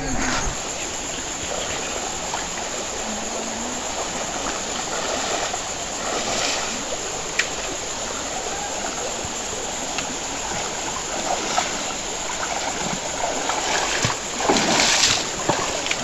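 Shallow stream running over rocks, a steady rush of water, with splashes of someone wading through it, loudest near the end.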